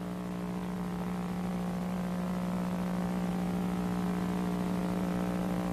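Steady electrical hum on one unchanging low pitch, with a faint hiss above it.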